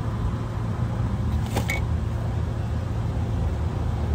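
Steady low hum of a motor vehicle engine idling nearby, with a brief scrape about a second and a half in.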